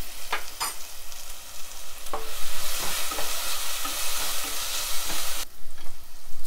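Sliced onions sizzling as they fry in ghee in a pan, stirred with a wooden spatula. The sizzle grows louder about two seconds in and cuts off sharply near the end.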